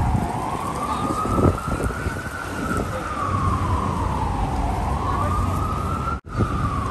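Emergency vehicle siren in a slow wail, its pitch rising and falling over a few seconds each way, over the low rumble of city street traffic. The sound cuts out for an instant near the end.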